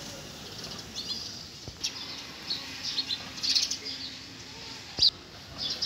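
Small birds chirping, with short high calls scattered throughout and a brief flurry about three and a half seconds in. A single sharp click about five seconds in is the loudest sound.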